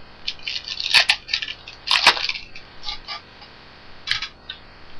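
Crinkling and tearing of a trading-card pack wrapper being opened by hand, with the sharpest crackles about one and two seconds in and lighter rustling after.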